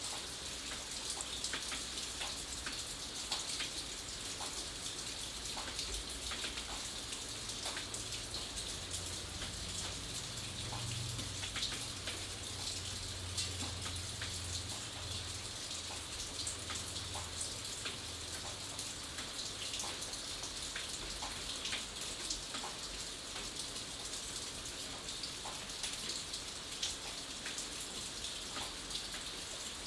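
Steady rain, with many individual drops landing on a surface as distinct ticks over an even hiss. A faint low rumble sits underneath through the middle of the stretch.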